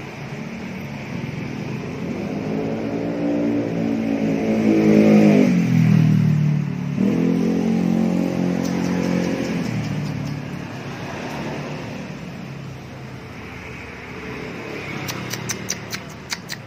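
A motor vehicle driving past, its engine note rising to a peak about five seconds in, dropping in pitch, then running on and fading away. A quick run of sharp clicks near the end.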